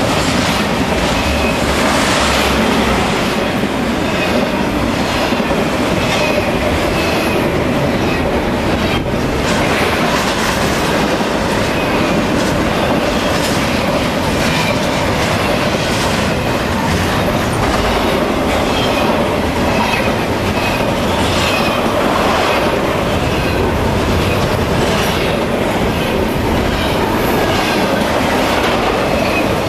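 Norfolk Southern intermodal freight train's cars, double-stack containers and trailers on flatcars, rolling steadily past at close range, loud and continuous. The wheels click over the rail joints, with short high wheel squeals now and then.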